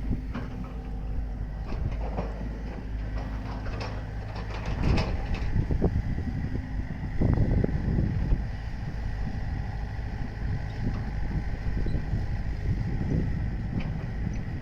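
Mini excavator engine running steadily, with knocks and scrapes of demolition debris being broken up. These are loudest about five seconds in and again around seven to eight seconds in.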